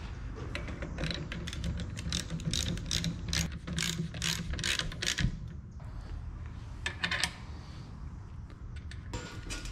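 Hand socket ratchet clicking in quick strokes as a nut on a Harley-Davidson springer front fork is run down, with a pause about five seconds in, a short run of clicks around seven seconds, and more strokes near the end.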